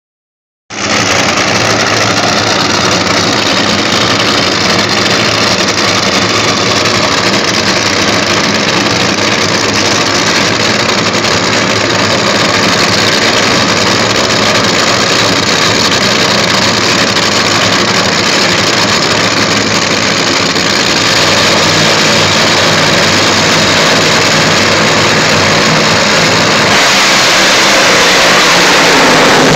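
Two nitro funny cars' supercharged V8 engines running loudly at the starting line, a steady deep engine rumble. About 27 seconds in the sound grows brighter and a little louder.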